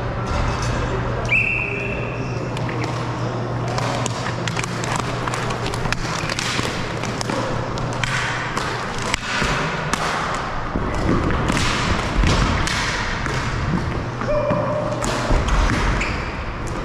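Cosom (floor) hockey play: plastic sticks and ball knocking and clacking on the gym floor in a string of short, sharp hits, over a steady low hum. A brief high squeal about a second and a half in.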